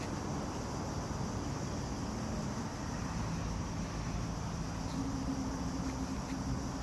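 Steady outdoor background noise with a faint, steady low hum.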